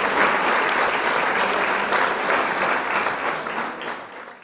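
Applause: dense, many-handed clapping that fades away over the last second and then stops.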